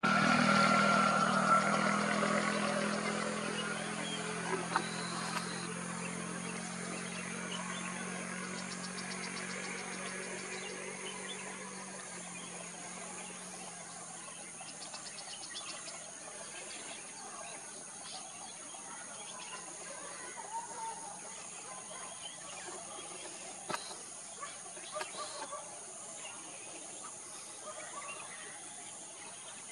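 Outdoor ambience: a steady high-pitched insect drone, a low hum that fades away over the first twelve seconds or so, and scattered short chirps and ticks.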